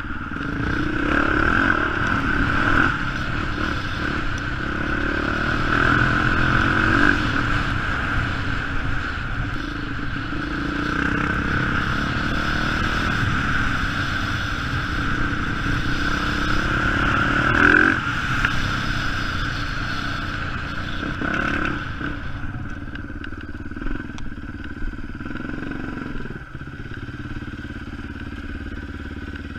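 Dirt bike engine running on the move, its pitch rising and falling with the throttle. About three quarters of the way through it drops to a quieter, lower running, with a few clattering knocks near the end.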